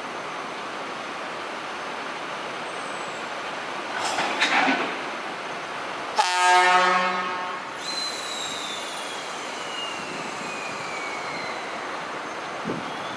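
A diesel locomotive's horn, an American-style air horn, sounds one blast of about a second and a half about six seconds in, over the steady running of idling locomotive diesel engines. A brief noisy burst comes about four seconds in, and after the horn a thin tone glides slowly down in pitch.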